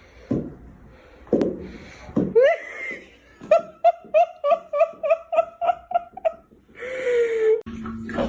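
A person laughing hard in a quick run of about a dozen "ha"s, about four a second, after a few short exclamations. Near the end the sound cuts suddenly to a steady low hum.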